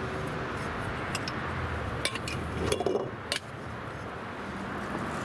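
A few light clicks and knocks, mostly between two and three and a half seconds in, over steady background noise.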